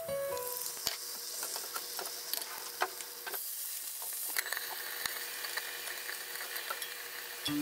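Beaten egg sizzling in an oiled rectangular tamagoyaki pan, with small taps and scrapes of chopsticks and a spatula. About three and a half seconds in, a louder hiss lasts about a second as sake hits the hot frying pan of pork rolls.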